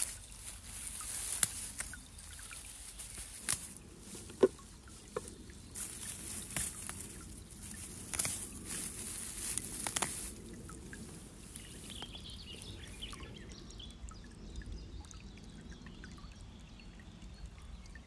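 Dry fern litter rustling and crackling under a gloved hand, with crisp snaps as ostrich-fern fiddleheads are broken off at the base. The clicks and snaps come thick for the first ten seconds, then it goes quieter.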